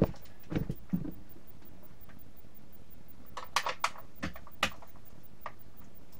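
Nerf Demolisher 2-in-1 blaster being handled, making scattered short plastic clicks and knocks: a few in the first second, then a quick cluster about three and a half to five seconds in.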